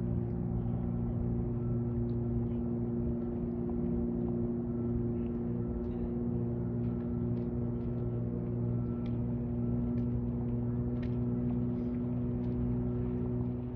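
A steady, unbroken low hum with several evenly spaced overtones, cutting off suddenly at the end, with faint scattered clicks over it.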